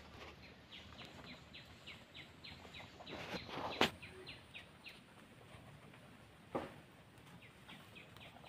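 A quick run of short, high chirps, each falling in pitch, about three a second. They break off for a couple of seconds and start again near the end. A sharp click about four seconds in is the loudest sound, and a softer knock follows later.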